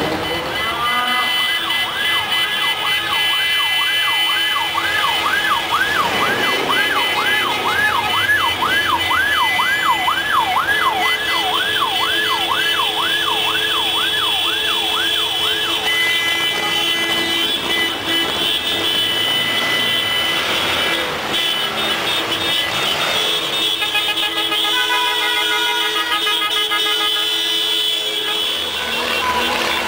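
A siren warbling up and down about twice a second for roughly the first half, over long steady car-horn blasts, in the street traffic of a procession of air-cooled VW Beetles. Near the end several horns sound together in long blasts.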